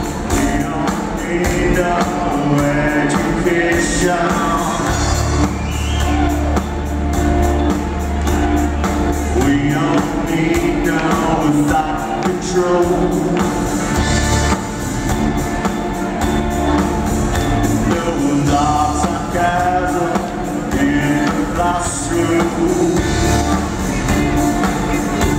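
Live band playing rock music on electric guitars, bass and drums, with a voice singing over it.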